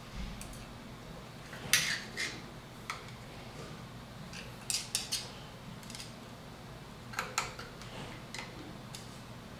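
Screwdriver tips clicking and scraping against a metal snap ring as it is worked around into its groove in a waterjet pump's hydraulic seal cartridge. The short metallic clicks come singly or in pairs about a second apart.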